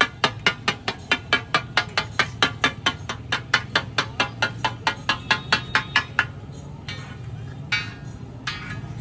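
Metal spatula striking a tawa (flat iron griddle) in a quick, even rhythm, about five clangs a second, as the daal is chopped and stirred on it. The rhythm stops about six seconds in, and a couple of single clinks follow.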